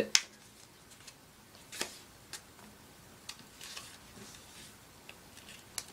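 A sheet of paper being folded and creased by hand on a tabletop: soft rustling with a few sharp crackles and taps as the crease is pressed down.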